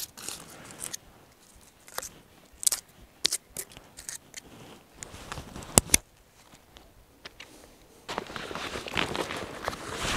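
Backpack gear handled: scattered sharp clicks and taps from the plastic strap buckles and webbing, the sharpest about six seconds in, then a couple of seconds of fabric and nylon rustling near the end.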